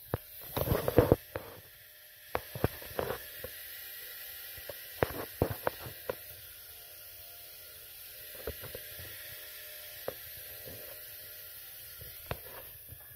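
Bambu Lab X1 3D printer's fans running with a steady hum, overlaid by irregular clicks and knocks: a dense cluster about a second in, then scattered clicks.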